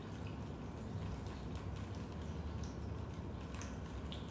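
Raindrops dripping and pattering into a basement: scattered, irregular sharp drips over a steady low rumble.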